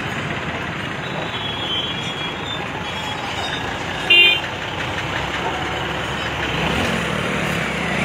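Steady running of heavy machinery engines, a mobile crane and road-building vehicles, with a short, loud vehicle horn toot about four seconds in.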